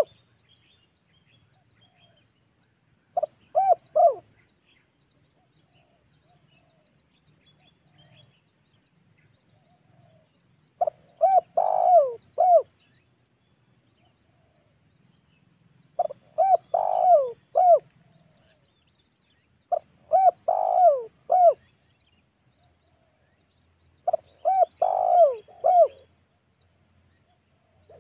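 Spotted dove (tekukur) cooing: five phrases of several short coos each, repeated every four to eight seconds. This is a lure call of the kind played to draw in wild doves.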